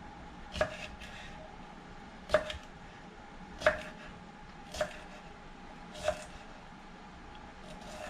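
Knife slicing a cucumber on a cutting board, five separate cuts a little over a second apart, each ending in a sharp knock of the blade on the board.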